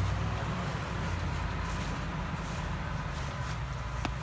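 Land Rover Discovery's engine running at low revs with a steady low rumble as the SUV creeps forward. A single sharp click about four seconds in.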